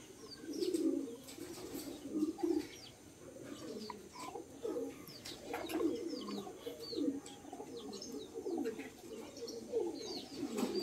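Doves cooing over and over, with small birds chirping short, high, falling notes.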